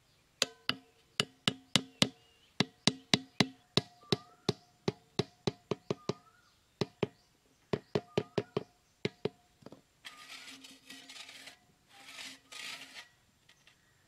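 Back of a small hatchet hammering bamboo stakes into sandy ground: sharp knocks about two to three a second, each with a brief ringing tone, with a short pause about seven seconds in. The knocking stops after about nine seconds and gives way to a few seconds of rough scraping and rustling as the stakes and tin can are handled.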